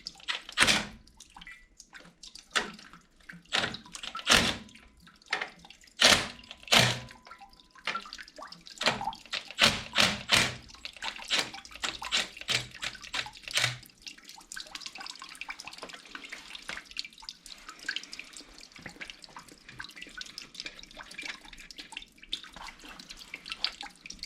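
Water dripping and trickling from a 3-inch Watts 009 backflow preventer's relief valve as it is taken apart, with sharp clicks and knocks of metal parts and tools through the first half. From about halfway the sound settles into a steady trickle.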